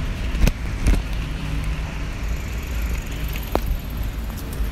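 Wind rumbling against a phone microphone with traffic noise while cycling, with two knocks from the phone being handled about half a second and a second in, and a short click later.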